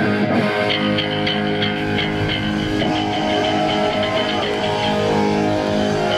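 Rock band playing live: electric guitar holding sustained chords over a steady ticking beat, about two ticks a second.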